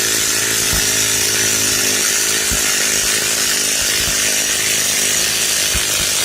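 A cordless power tool running steadily under load as it screws a 24-inch GroundGrabba Pro II steel stake down into hard desert sand, driving it toward flush.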